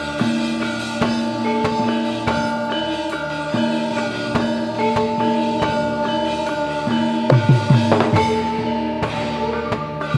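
Gamelan ensemble playing: metallophones hold ringing notes over a steady pulse of drum strokes, with a flurry of drum hits that drop in pitch, typical of the kendang, about three-quarters of the way through.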